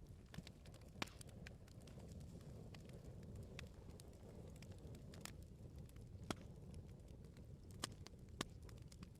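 Bonfire of burning wood crackling: irregular sharp pops and snaps over a low steady rush of the flames, the loudest pops about a second in and twice near the end.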